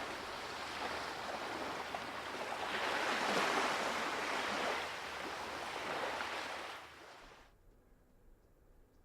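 Sea surf washing, a rushing wash that swells to its loudest a few seconds in and then cuts off abruptly about seven seconds in.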